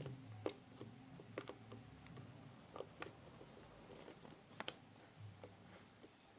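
Slime being squeezed and kneaded by hand, making faint, irregular sticky clicks and small pops.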